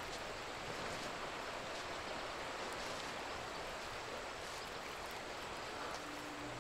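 Steady, even rush of flowing river water. About six seconds in, a low steady hum joins it.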